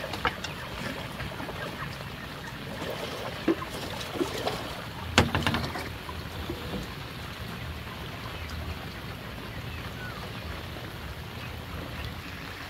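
Steady hiss of rain and water, with a few knocks and a short clatter of bamboo poles being handled; the sharpest knock comes about five seconds in.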